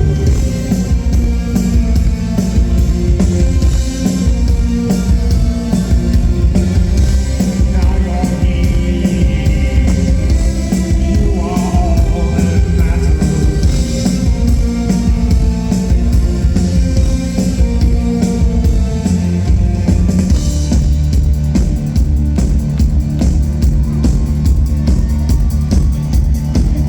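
Loud rock music with singing over drums and guitar. About twenty seconds in it changes to music with a steady electronic beat.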